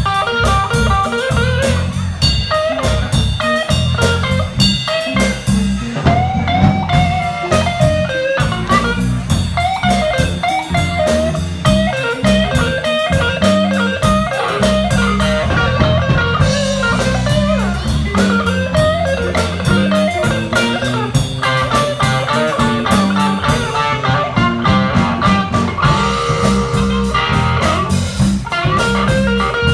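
Live electric blues band playing an instrumental passage: electric guitars, electric bass and drum kit keeping a steady beat, with a blues harmonica playing bending lead lines over the top.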